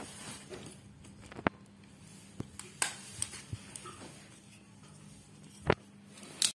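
A small hand stapler clicking shut a few times as staples are pressed through folded leaves into cardboard, with light rustling of the leaves in between; the sharpest click comes near the end.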